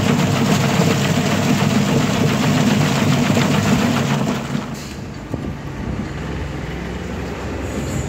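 Wet garlic peeling machine running: a steady motor drone with garlic cloves rattling and churning against the spinning disc and bristle-lined drum. About halfway through the sound drops and becomes quieter, leaving mostly a low steady hum.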